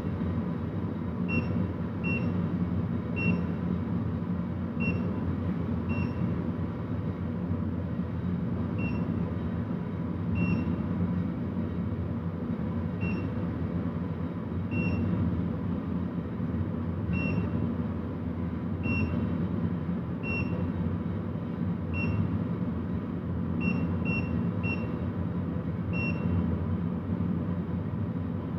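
Precia Molen i20 weighing indicator's keypad beeping: a short, high, single-tone beep with each key press, about seventeen of them at irregular intervals. A steady low rumble runs underneath.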